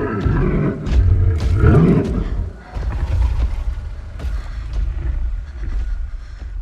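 Brambleboar monster sound effect: deep growling and grunting over a heavy low rumble, with a rising growl at the start and another about two seconds in, a short drop-off soon after, and the sound fading out at the end.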